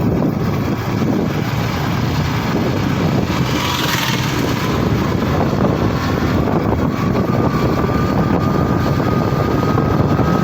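Steady rumble of a vehicle moving along a road, with a brief hiss about four seconds in and a faint thin whine after it.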